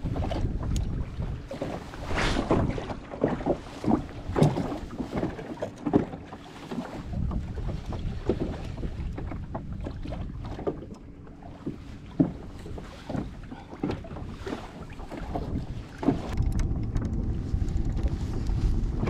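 Wind rumbling on the microphone, heaviest at the start and again near the end, over irregular light knocks and water slaps as a small plastic fishing boat rocks on choppy water.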